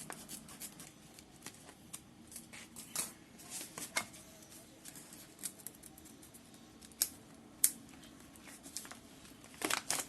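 Packet of pudina satt (menthol crystals) being handled and opened: scattered crinkles and sharp clicks, with two louder clicks about seven seconds in and a quick flurry near the end.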